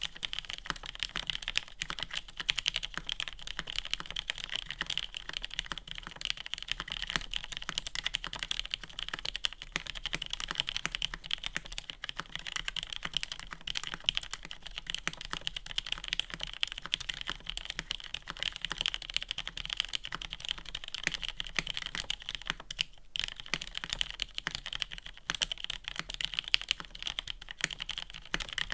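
Steady, fast typing on an Exclusive E8.5 gasket-mount mechanical keyboard with a polycarbonate case and plate, lubed and filmed Cherry MX Black linear switches and GMK keycaps. It is a dense run of keystroke clacks with a brief pause about 23 seconds in.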